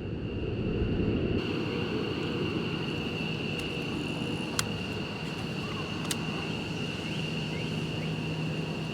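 Steady high-pitched drone of insects. A low rumbling noise fills the first second and a half, a faint low hum comes in after that, and two small clicks sound in the middle.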